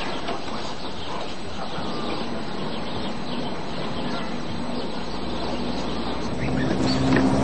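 Birds chirping and calling over a steady background hiss; a low steady hum comes in near the end and grows louder.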